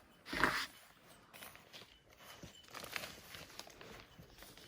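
Hands working compost around a newly set plant in a wooden planter: a short loud rustle of soil about half a second in, then soft scraping and crumbling as the soil is pressed firm.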